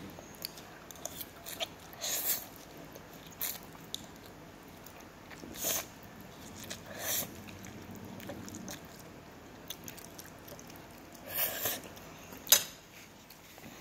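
A child eating Samyang spicy instant noodles: several short, airy slurps with chewing between them, and a sharp click near the end.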